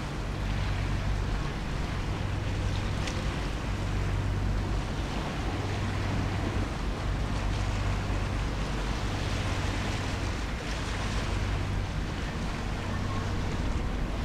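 Steady low hum of a tugboat's diesel engine working as it tows a loaded barge, heard over wind on the microphone and lapping water.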